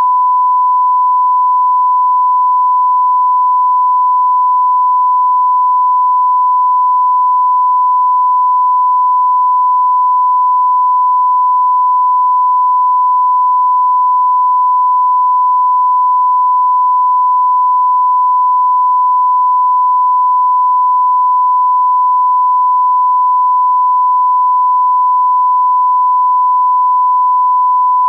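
Continuous 1 kHz sine test tone, one pure pitch held unbroken and unchanging: the reference tone that goes with a TV 'no signal' or test-card screen.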